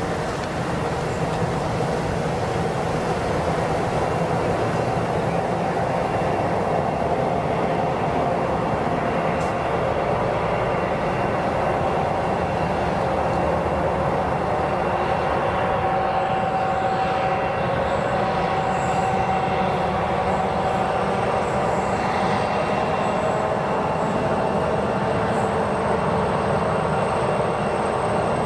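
Pacific National 81 class diesel-electric locomotives, with EMD two-stroke V16 engines, work a loaded container freight train towards the listener with a steady engine drone. The sound grows slightly louder as they approach, and a thin high whine joins in about halfway.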